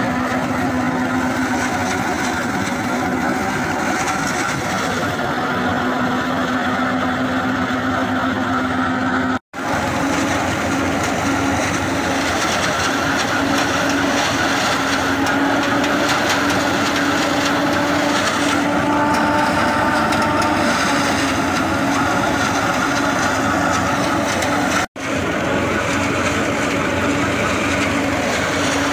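Massey Ferguson 385 tractor's four-cylinder diesel engine running under load, driving a front-mounted forage harvester that cuts standing maize and blows the chopped silage out through its spout: a loud, steady mechanical din with a constant drone. The sound cuts out briefly twice.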